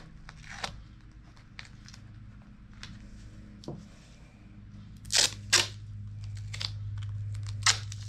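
Adhesive tape being pulled off the roll and torn, with small handling clicks and crinkles; two loud rips come about five seconds in and another near the end.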